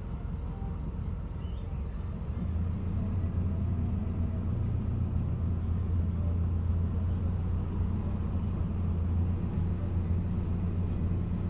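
Ataman A093H6 city bus running, heard from inside: a steady low engine drone that grows louder about two and a half seconds in, as the bus pulls harder.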